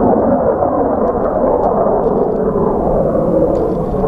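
F-16 fighter jet engine roaring steadily in flight, a loud, even rumble heard from the ground.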